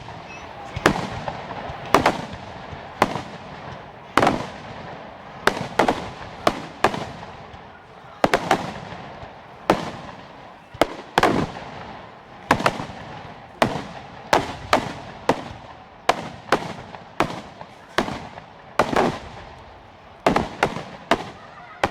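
Fireworks bursting overhead: a continuous run of sharp bangs, about one or two a second and sometimes in quick doubles, each trailing off in an echo.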